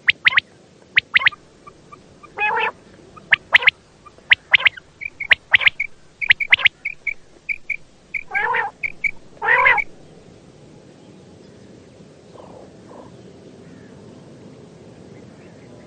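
Quail calling: sharp, clipped notes in quick pairs and triples, with a few lower, fuller calls among them. The calling stops about ten seconds in.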